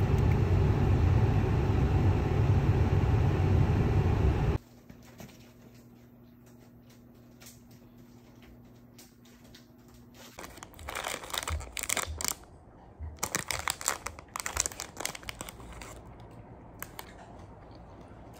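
Loud, steady outdoor street noise cuts off suddenly about four and a half seconds in. After a few quiet seconds, a black plastic grape tray crinkles and crackles in irregular bursts while it is handled, for about five seconds.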